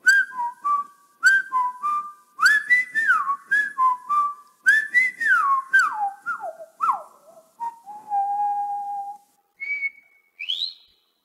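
Whistled tune: a run of short notes with slides, stepping downward to one long steady note, then a short higher note and a quick rising glide near the end.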